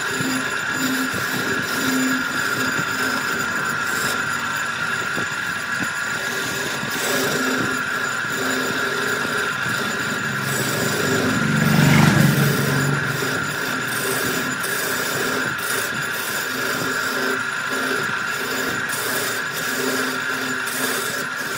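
Wood lathe running while a turning tool cuts the spinning wood: a steady high whine under rough cutting noise, growing louder for a moment about halfway.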